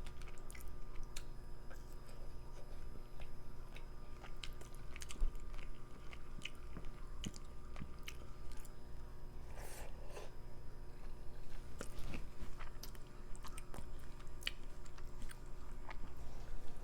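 A person chewing food close to the microphone, with many small, irregular wet mouth clicks and smacks.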